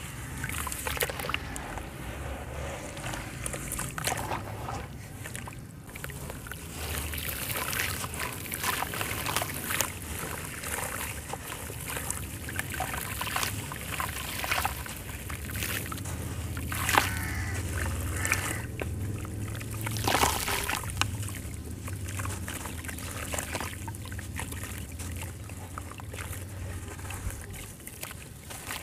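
Soaked sand-cement chunks being squeezed and crumbled by hand in a tub of muddy water: continuous sloshing and trickling, with gritty crackling as the chunks break apart and wet sand pours back into the water. There are a couple of sharper, louder crunches or splashes past the middle.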